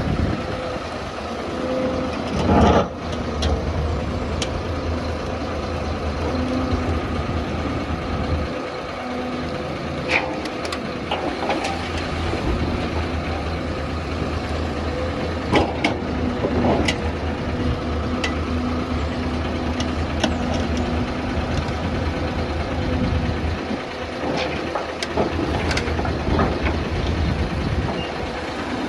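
Doosan DX excavator's diesel engine running steadily while the machine works, with a few short sharp knocks scattered through, the loudest about three seconds in.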